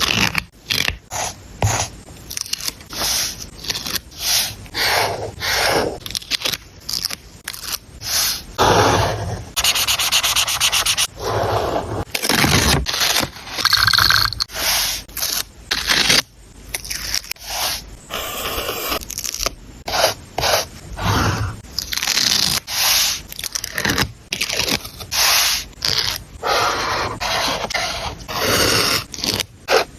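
Paper and stickers being handled while a journal page is laid out: a string of short scrapes and rubs on paper, with a brief fast run of ticks about a third of the way through.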